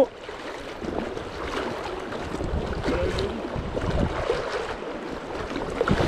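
River current rushing and sloshing around the legs of a wading angler, an uneven wash of water noise with a low rumble.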